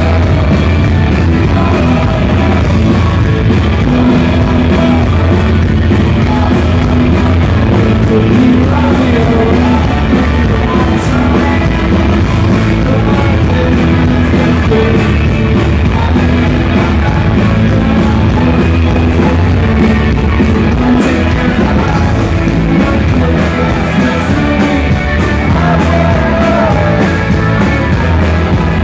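Live rock band playing loud, steadily and without a break: electric guitars, bass and drums, with a singing voice over them.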